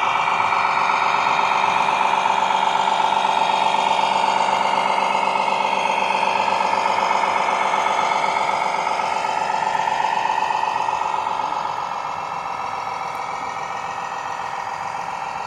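Radio-controlled model truck running under power: a steady engine-like drone with a wavering whine that comes in loudly at the start and drops to a lower level about twelve seconds in.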